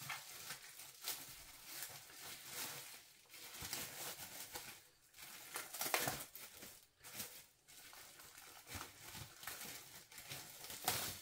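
Plastic shrink-wrap being peeled off a pizza by hand, crinkling and rustling in irregular bursts, loudest about six seconds in.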